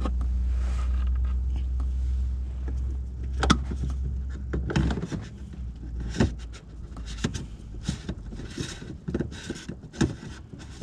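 A steady low hum for about the first five seconds, then stopping, over which come scattered sharp clicks and scrapes of a plastic diesel fuel filter cartridge being handled and pushed up into its housing by hand.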